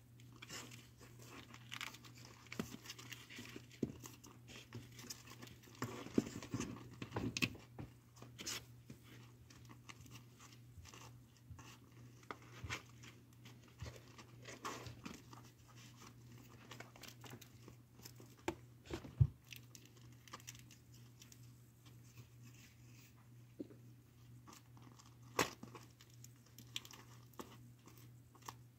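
Kittens playing with toys on a cardboard floor, pawing and biting at them: scattered soft rustles, crinkles and scratches with small knocks, and a sharp tap about 19 seconds in and another near 25 seconds. A faint low steady hum runs underneath.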